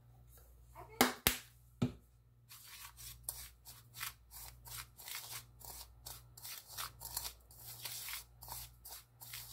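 Fingers rubbing and mixing granulated sugar and ground cinnamon in a ceramic bowl: quick gritty scrapes, about four a second, starting a couple of seconds in. Two sharp knocks come first, about a second in, over a steady low hum.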